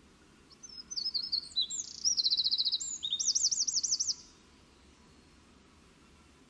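A small songbird singing one high song about three and a half seconds long: a few scattered notes, then two fast trills of looping notes, stopping abruptly.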